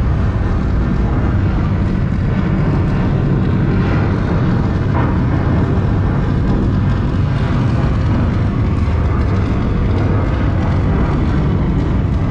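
Loud, steady low rumbling roar from an immersive projection room's soundtrack.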